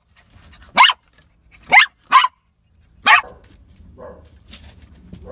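A young puppy barking: four short, sharp, high-pitched barks, the middle two close together.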